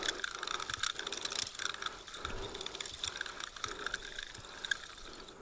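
Fishing reel clicking in a fast, steady run while a hooked fish is being played.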